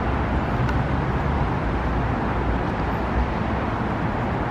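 Steady city street ambience: a continuous wash of road traffic noise with a low rumble.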